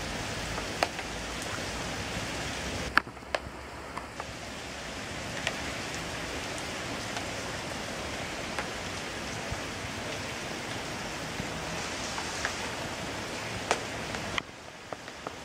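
Rain falling steadily on pavement and foliage, a continuous hiss with scattered sharp taps of drops landing close by. The hiss dips briefly about three seconds in and again near the end.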